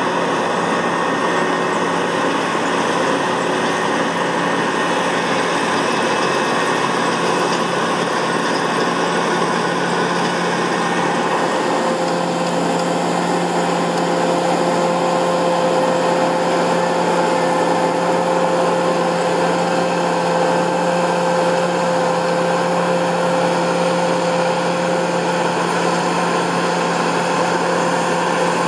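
Massey Ferguson 7360 PL combine harvester running steadily under load while harvesting, its engine drone mixed with the whine of the threshing and cutting mechanism. A higher steady whine comes in about twelve seconds in.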